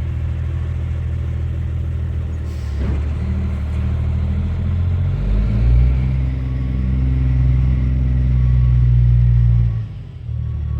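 Diesel engine of a dump truck, an M11 Cummins, running steadily and then pulling harder with a deeper, louder note from about five seconds in. The note drops off sharply near the end. There is a brief hiss about three seconds in.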